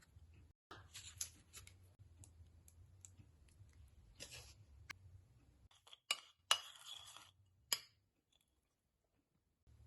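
Small clicks, taps and scrapes of kitchen utensils and dishes being handled, with three sharper clinks about six to eight seconds in, followed by a short stretch of near silence.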